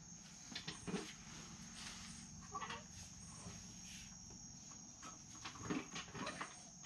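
Faint steady high-pitched trilling of insects such as crickets, with a few faint knocks.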